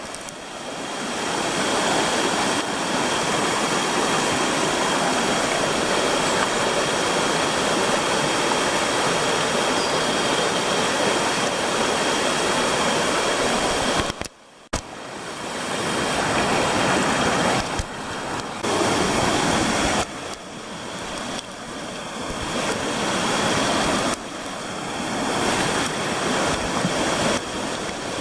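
Rushing water of a mountain stream, a steady dense rush that drops out briefly about fourteen seconds in and then jumps up and down in level several times.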